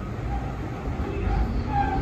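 Interior of an R62A subway car in motion: a steady low rumble of the train that grows louder, with brief faint high-pitched squeaks starting about a second in.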